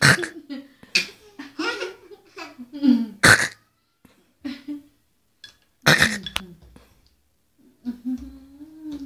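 Laughter and short vocal sounds in bursts with brief pauses, including several sharp breathy outbursts.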